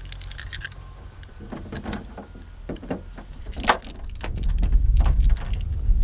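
Keys jangling on a ring and clicking against a Fiat Panda 4x4's door lock as a key is tried in it, a series of small sharp clicks and rattles. From about four seconds in a loud low rumble rises beneath them.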